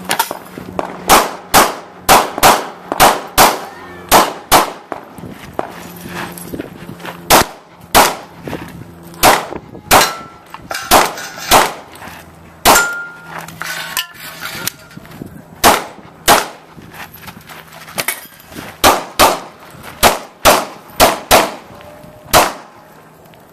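Pistol fired through a practical shooting course of fire: about thirty sharp shots, mostly in quick pairs with pauses between strings, first shot about a second in. Some hits on steel targets clang and ring.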